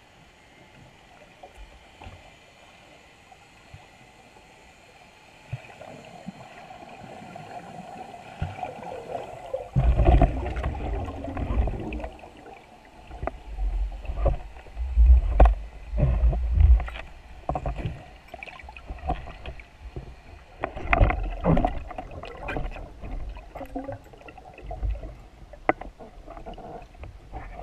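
Underwater noise picked up through a waterproof camera housing on a speargun: irregular muffled thuds, knocks and sharp clicks as the gun and camera are moved and handled in the water, over a faint water hiss. It is quiet at first and becomes busy from about ten seconds in.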